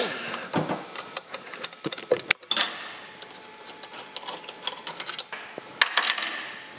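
Scattered light metal clicks and clinks of a turbocharger's cast aluminium compressor housing being worked loose and pulled off the turbo.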